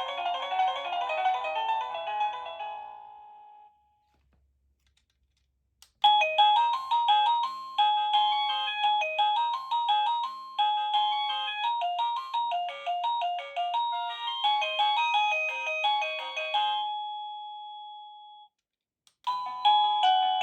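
Avantek wireless doorbell chime playing electronic melody tunes in turn. The first tune dies away about three and a half seconds in. After a short silence and a click, a new melody plays for about twelve seconds and ends on a held note, and another tune starts near the end.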